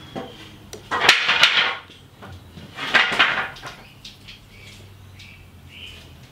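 Pencil scratching marks onto a wooden board, two short scratchy strokes about two seconds apart.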